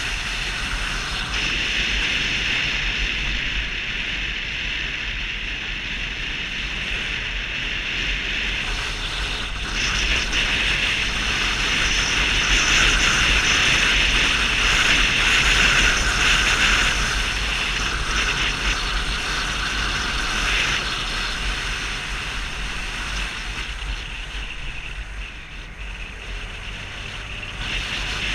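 Riding noise on a Vespa 250 GTS scooter at speed: wind rushing over the microphone above a steady low rumble from the scooter and road. It eases off a little about three-quarters of the way through and picks up again near the end.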